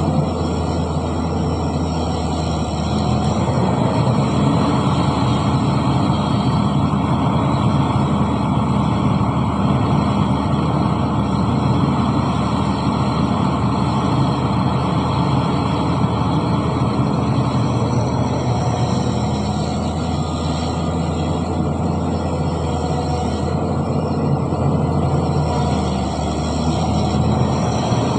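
Heavy diesel engine of earthmoving machinery running steadily, with a constant low hum and no clear rise or fall in revs.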